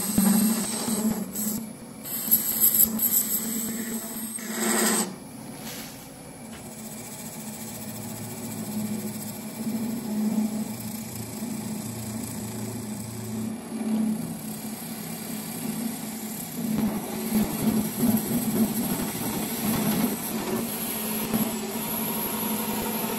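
Wood lathe running with a steady hum while a hand-held turning tool cuts into a spinning solid brass bar, the scraping cutting noise loudest in the first five seconds and coming and going after.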